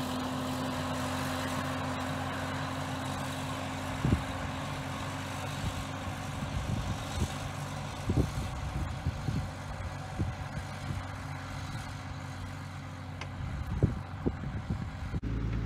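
Tractor engine running steadily, heard from inside the cab while pulling a coulter through the field. Scattered knocks and rattles come through, the loudest about 4 seconds in and again near the end.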